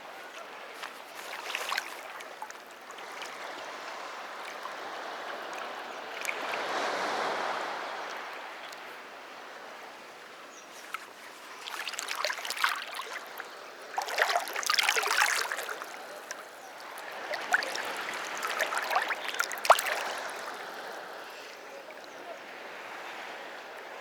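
Sea surf on a beach: waves break and wash up the shore in surges that swell and fade every few seconds, the washes louder and crackling with foam in the second half. A single sharp click about twenty seconds in.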